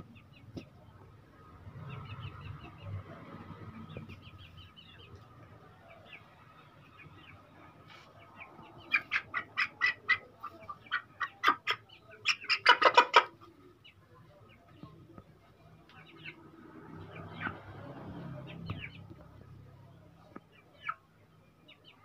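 Young Aseel chicken calling: a loud run of short, sharp calls, about four or five a second, for several seconds midway, with faint scattered chirps around it.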